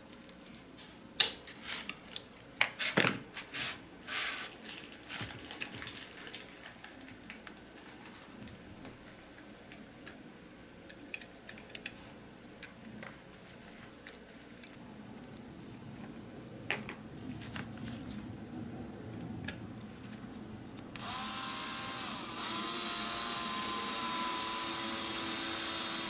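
Small clicks and knocks of metal die-cast parts being handled, then, near the end, a cordless drill starting up and running steadily as it drills out the rivet of a Matchbox die-cast truck.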